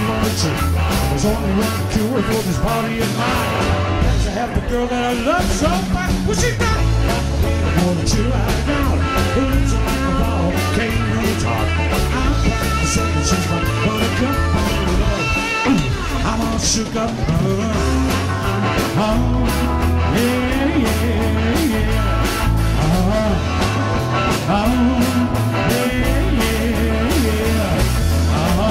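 A live rock and roll band playing, with electric guitars, bass and a drum kit with frequent cymbal hits over a steady beat.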